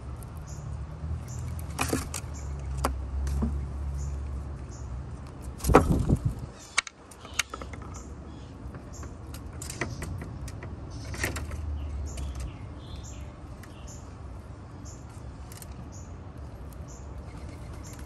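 Eastern gray squirrel gnawing and cracking peanuts: a string of sharp crunches and clicks, with a loud knock about six seconds in. A low rumble runs underneath.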